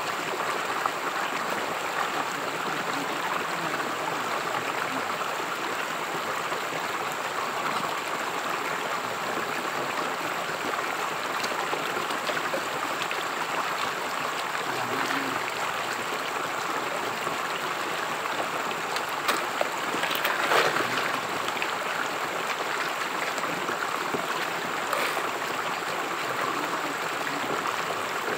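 Shallow rocky stream running steadily, with water sloshing as gravel is washed by hand over a gold-catching carpet in the current. A few louder splashes, the loudest about twenty seconds in.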